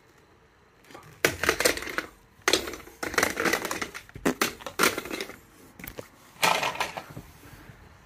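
A run of repeated crashing, crunching smash impacts, starting about a second in and coming every half second or so: a toy Hulk figure bashing into plastic Henry Hoover toys.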